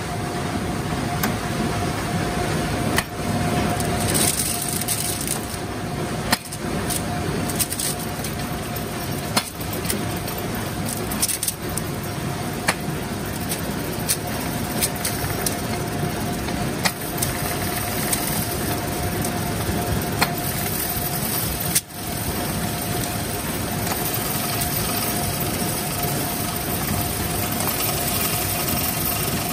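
Centrifugal spinner basket full of freshly made screws spinning fast: a steady whir with a faint steady whine, and scattered sharp clicks.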